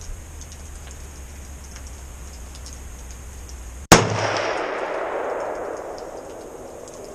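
A single shot from a 300 Blackout AR pistol with a 10.5-inch barrel, about four seconds in, followed by a long echo that fades away over the next three seconds.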